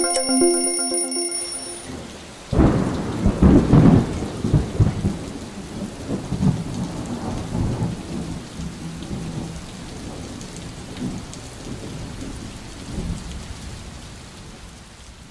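A few ringing musical tones stop about a second in. After a short lull, a loud clap of thunder breaks out and rumbles away slowly over steady rain, with another, weaker rumble near the end.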